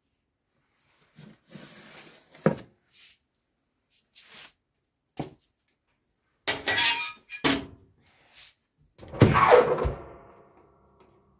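A baking tray clattering and scraping as it is taken out of an oven and set down, then the oven door shut with a loud clang that rings briefly, about nine seconds in.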